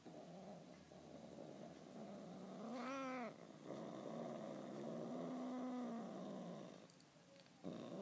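Persian cat growling in a low rough rumble, with a short moaning yowl about three seconds in and a longer low moan a couple of seconds later: an angry, irritated cat. Near the end a louder wavering yowl starts.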